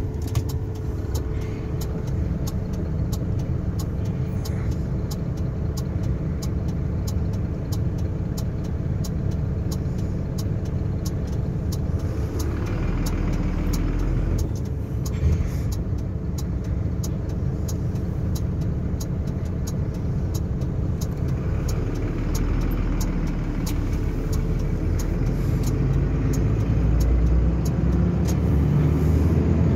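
Truck cab interior on the move: a steady engine and road rumble with a string of faint ticks throughout. The engine note starts to rise near the end.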